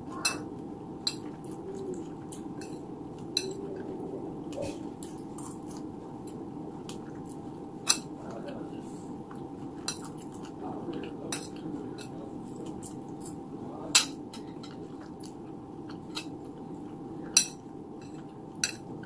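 Metal spoon clicking and scraping against a plastic plate while scooping food, with chewing between spoonfuls. Short sharp clicks come every second or so, the loudest about eight, fourteen and seventeen seconds in.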